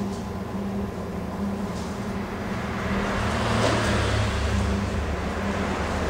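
Steady low rumble of passing road traffic that swells about three and a half seconds in and then eases, over a faint steady hum.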